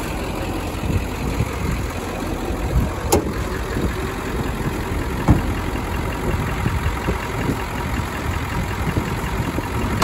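Ford 7.3 Powerstroke V8 turbo-diesel idling steadily, warmed up, with a couple of sharp clicks about three and five seconds in.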